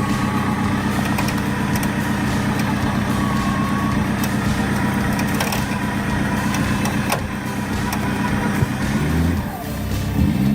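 A large engine running steadily, rising in pitch as it revs up near the end.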